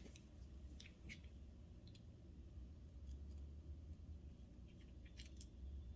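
Near silence with a few faint, light clicks of small metal sewing-machine parts and hand tools being handled, over a low steady hum.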